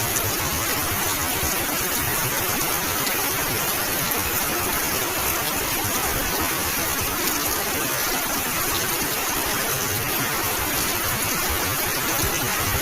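Heavy rain pouring down: a dense, steady hiss that does not let up.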